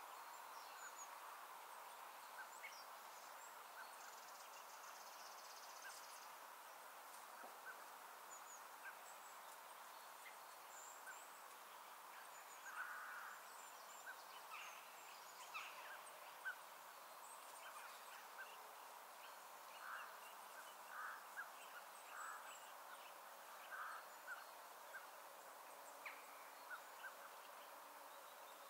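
Faint open-countryside ambience: scattered short bird chirps and calls, more frequent in the second half, over a faint steady background hiss.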